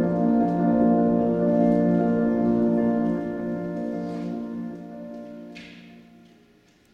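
Accompanying music for a stage dance: a sustained held chord that fades out over the last few seconds to near silence.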